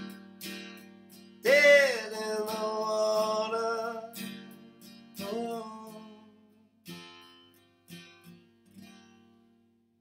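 Acoustic guitar strummed with a man's voice holding one long sung note early on and a shorter one after it, as the song's closing chords are played. Near the end a few last single strums ring out and fade away.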